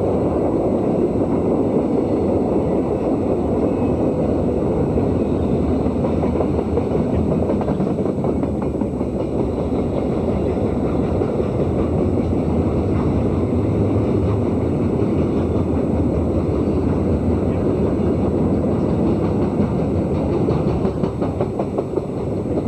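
A Conrail freight train passing at speed: a steady loud rumble with rapid wheel clatter.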